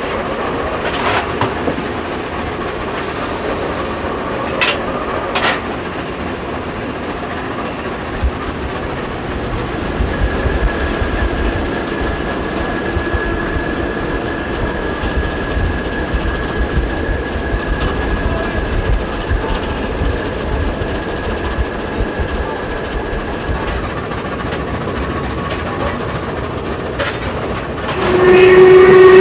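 Steady running noise in the cab of steam locomotive 464.202 at speed, wheels clicking over rail joints, with a deeper rumble joining about a third of the way in as the Nohab diesel M61.010 runs alongside. Near the end a locomotive horn or whistle starts blowing loudly on one held chord.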